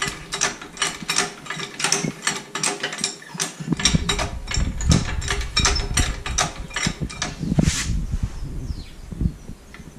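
Hydraulic floor jack being pumped, its pump and handle clicking about three times a second, with heavier thuds and handling rumble in the second half.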